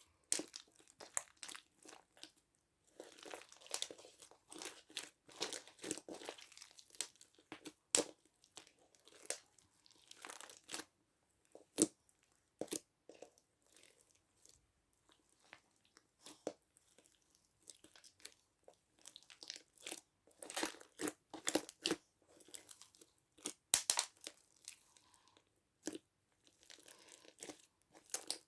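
Slime being squished and stretched by hand: irregular sticky clicks and crackles. It is a hard slime being worked with cream to soften it.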